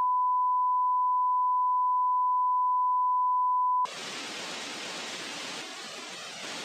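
A steady, high electronic beep tone from a television broadcast cuts off sharply a little under four seconds in. It is replaced by the quieter hiss of television static.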